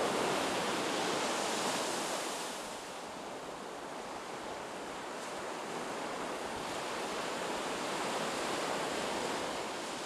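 Sea waves washing onto a beach: a steady rushing of surf that ebbs after the first couple of seconds and swells again near the end.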